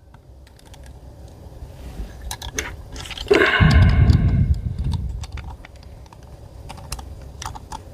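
Light clicks and clinks of small metal parts and tools being handled while a fitting is threaded into an air rifle. About three seconds in, a louder sound with a hum to it rises and fades over a second or so.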